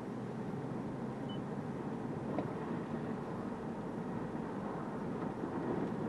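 Steady tyre road noise heard inside a moving Toyota Corolla Touring Hybrid on Bridgestone Regno tyres, with the driver's window open a couple of centimetres. It is the noise of the tyres on the road surface, not wind noise off the body. A faint tick comes about midway.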